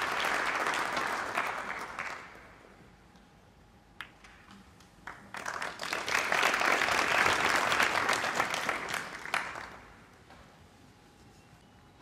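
Snooker arena crowd applauding in two rounds: the first dies away about two seconds in, the second swells about five seconds in and fades near the end. One sharp click sounds between them.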